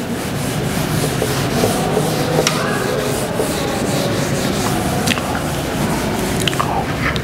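Whiteboard eraser rubbing steadily across a whiteboard, wiping off marker writing.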